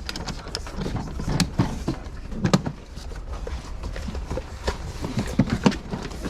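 Scattered clicks and knocks of belongings being handled and rummaged through, with a few sharper knocks about two and a half seconds in and near the end, over a steady low rumble.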